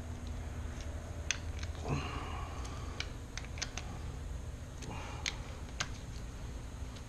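Scattered light metallic clicks and clinks of hand tools and engine parts being handled on a two-stroke dirt bike engine during a top-end rebuild, with two brief sliding sounds, about two seconds in and again near five.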